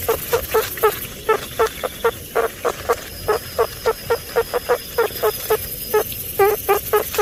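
Meerkats calling: a rapid run of short, pitched chirps, about three to four a second, with a brief pause shortly before the end.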